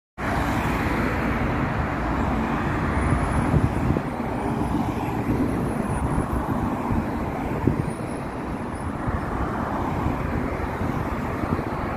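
Road traffic: cars passing on a multi-lane road, a steady rushing of engines and tyres.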